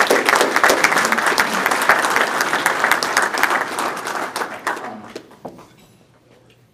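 Audience applauding: dense, steady clapping that dies away about five seconds in.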